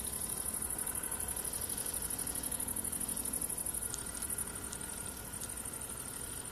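Crickets chirping in a steady, high-pitched trill with a rapid pulse. A few faint clicks come about four seconds in.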